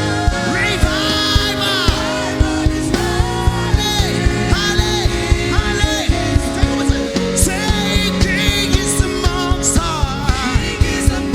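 Live worship band music: a steady drum beat about two to three hits a second under held chords and bass, with a voice singing gliding melodic runs over it.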